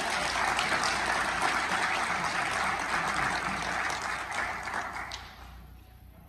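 Audience applauding; the clapping dies away about five seconds in.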